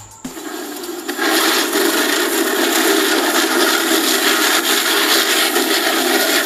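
Anar fountain fireworks packed in a tyre, spraying sparks with a loud, steady hiss. The sound comes through the LG monitor-TV's small built-in speakers, so there is no bass. The hiss starts about a quarter-second in and grows louder about a second in.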